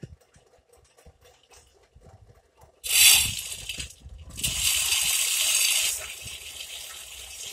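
Water gushing out in two loud spurts, the first about three seconds in, then running on as a steadier, quieter rush, from a bore well column pipe being lifted out of the well.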